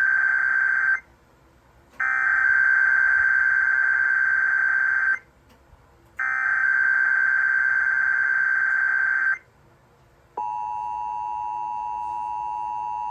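Emergency Alert System SAME header: three bursts of shrill digital data screech, the first short and the next two about three seconds each, with brief silences between them. About ten seconds in, the steady two-tone EAS attention signal starts. Together they open an EAS alert, here a Required Weekly Test.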